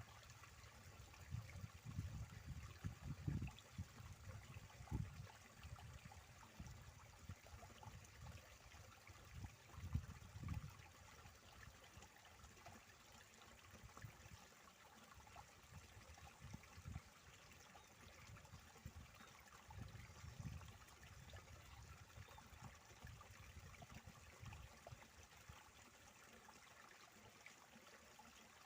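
Faint, steady flow of water in an irrigation channel, with irregular low rumbles, strongest in the first half.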